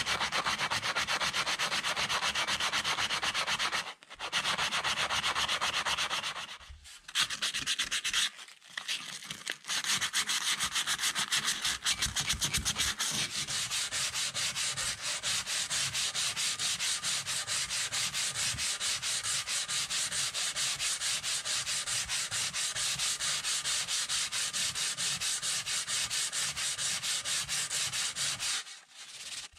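Hand sanding of a rusty metal ice cream maker canister with sandpaper and a sanding sponge, rubbed back and forth in fast, even strokes. The scraping breaks off for a few brief pauses.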